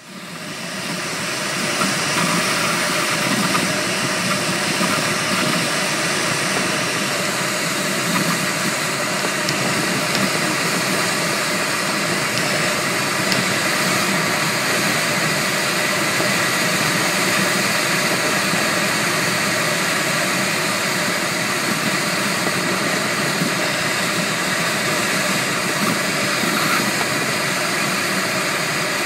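Steady rushing airflow noise inside a glider's cockpit in flight, fading in at the start and then holding level.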